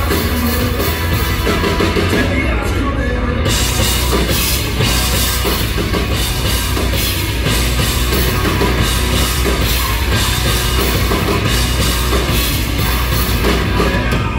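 Live rock band playing loud through a concert PA, with a driving drum kit and bass guitar. The cymbals drop out briefly about two seconds in, then the full band comes back.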